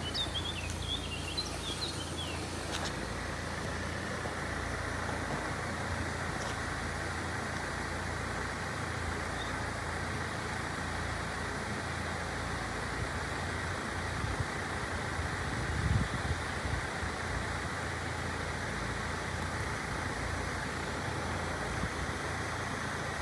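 Steady road and traffic noise at the closed crossing, with a bird chirping briefly in the first couple of seconds.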